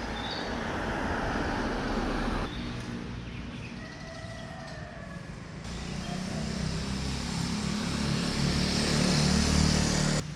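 MV Agusta Brutale 800's three-cylinder engine running, with abrupt jumps in the sound about two and a half and five and a half seconds in. It grows louder from about six seconds in, then cuts off sharply near the end.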